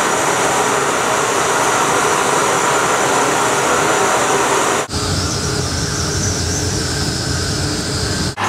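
Gas burner firing into a brick kiln with a steady, loud rushing noise, as the wax burns and drips out of the moulds. About five seconds in, a cut brings a different, deeper steady noise with a low hum.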